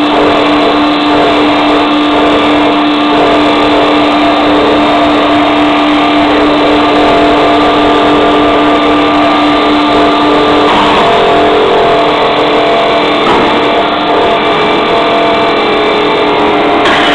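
An automatic hollow blow molding machine running with a loud, steady mechanical drone and a strong constant tone. Partway through, the tone shifts and the drone briefly unsettles as the mold halves close around the hanging plastic parison.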